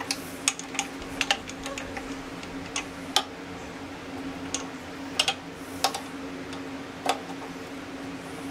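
Irregular sharp metallic clicks and taps, about ten in all, as parts are handled and adjusted at a mini metal lathe, over a steady low hum.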